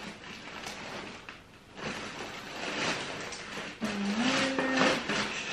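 A bag rustling and crinkling in irregular bursts as an item stuck inside it is worked loose by hand.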